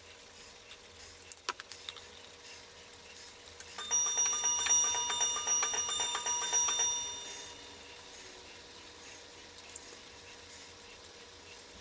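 A metal bell ringing with fast repeated strikes for about three and a half seconds, starting about four seconds in and then dying away. A few light clicks come just before it.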